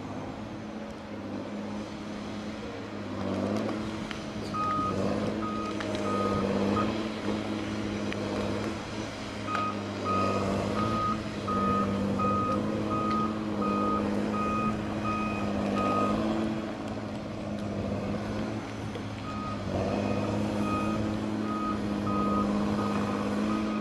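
Tigercat 635D grapple skidder's diesel engine running, revving up about three seconds in as the machine works. Its reversing alarm beeps about twice a second in three spells while it backs up.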